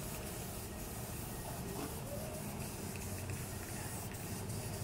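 Paint being sprayed: a steady, unbroken hiss.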